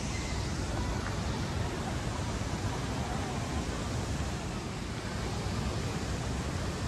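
Steady rushing outdoor ambience, heaviest in the low end, with no single sound standing out.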